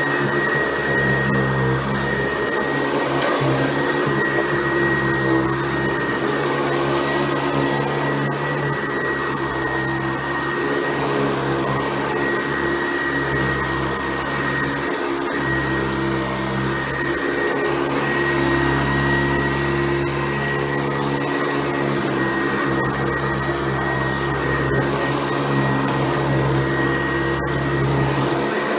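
Hoover Convertible U4349 upright vacuum cleaner running steadily, its motor giving a constant high whine over a low hum.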